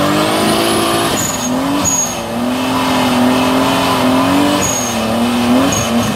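Turbocharged BMW E30 doing a burnout: the engine is held at high revs, with a few brief dips and rises, while the rear tyres spin and squeal on the asphalt.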